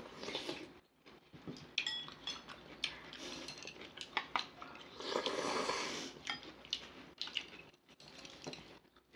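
Chopsticks and spoons clicking and scraping against ceramic bowls and a frying pan during a meal, in many short, irregular clicks. About five seconds in there is a longer noisy stretch.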